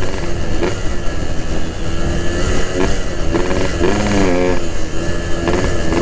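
Yamaha RX-King two-stroke single-cylinder engine running while the motorcycle is ridden, its pitch dipping and then climbing again about four seconds in. Wind rumble is heard underneath.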